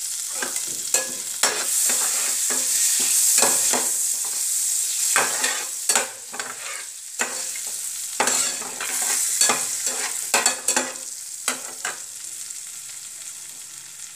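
Whole spices (cumin, bay leaves, cardamom, cinnamon) sizzling in foaming melted butter in a nonstick kadai, stirred with a spatula that scrapes and knocks against the pan many times. The sizzle fades near the end.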